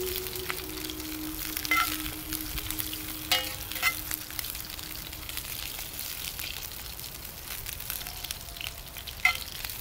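Green peppers sizzling in a cast-iron pan over an open wood fire: a steady frying hiss, with a few sharp clicks as they are turned with metal tongs.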